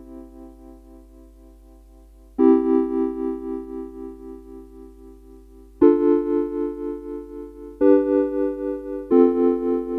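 Yamaha Electone A-55N electronic organ on its Vibraphone preset, playing held chords. Each chord starts sharply and slowly fades, with a quick pulsing tremolo made by the organ's IG02601 VCA chip. One chord dies away, then new chords come in about two and a half seconds in, near six seconds, near eight seconds and near nine seconds.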